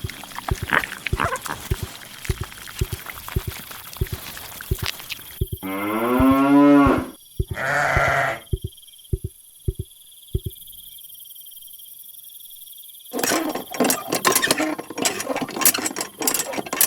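A cow mooing: one long call that bends in pitch, then a shorter, higher call. Sharp taps and clicks come before and after the calls, and come thickly again near the end.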